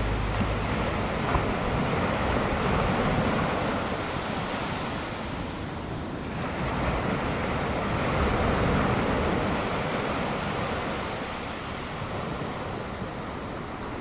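Ocean surf breaking on a beach: a steady rushing wash that swells and eases twice, with some wind.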